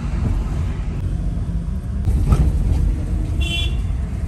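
Car driving slowly, heard from inside the cabin as a steady low rumble, with a thump about two seconds in and a brief high-pitched chirp near the end.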